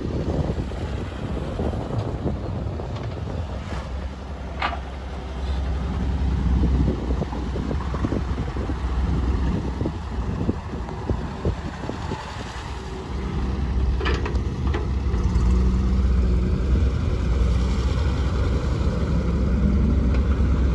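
Diesel engines of a backhoe loader and tractors running under load, growing louder about two-thirds of the way through, with a few brief high-pitched squeals.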